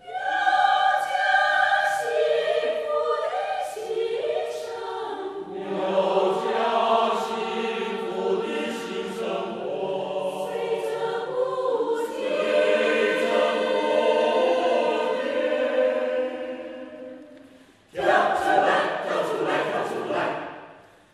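Mixed choir of women's and men's voices singing. The sound fades out to a brief break about eighteen seconds in, then a short last phrase starts up and dies away near the end.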